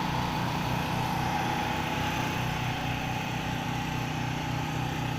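Portable generator's small engine running steadily, a low, even pulsing drone.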